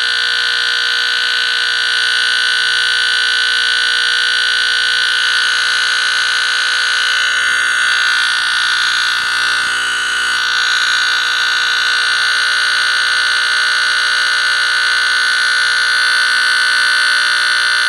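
A 1975 Captain Kelly Gillette model 941 line-cord smoke detector sounding its buzzer alarm under test: one steady, very loud buzz.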